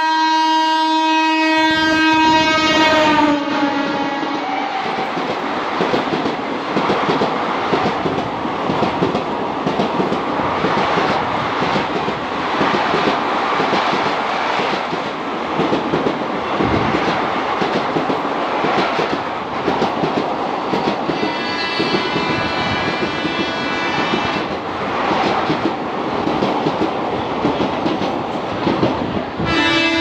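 A WAP-7 electric locomotive sounding its horn in one long blast that sags slightly in pitch and stops about four seconds in. Then the coaches of an express train run through at speed with a steady rush and rhythmic clatter of wheels over the rail joints. A fainter horn sounds for a few seconds about two-thirds of the way through.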